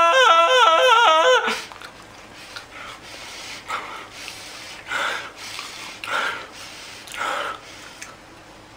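A man's loud wordless wail with a wobbling, warbling pitch, which breaks off about a second and a half in. It is followed by four short breathy huffs, roughly one a second.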